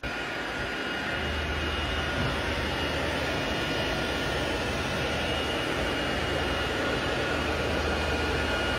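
Rack-mounted server and disk-array cooling fans, including those of an HP c7000 blade enclosure, running: a steady, fairly loud whoosh with a thin steady whine and a low hum beneath.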